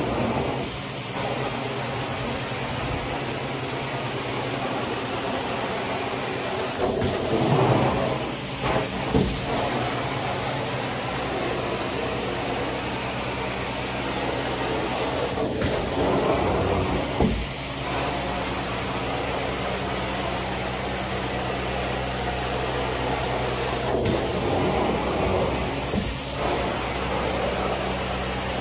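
Carpet extraction wand in use: a steady rush of vacuum suction through the hose over a constant machine hum, swelling and shifting three times as the wand is pushed and pulled across the wet carpet.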